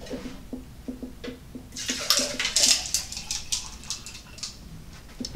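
Liquid being poured into a glass: a splashing, gurgling pour that starts about two seconds in and lasts about three seconds.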